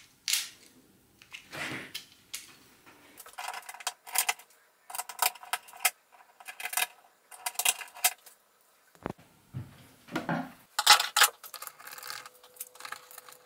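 Hands mounting a plastic power socket on a steel electrical enclosure: irregular clicks, taps and clusters of light metallic clinking from screws and parts against the steel cabinet, with pauses between.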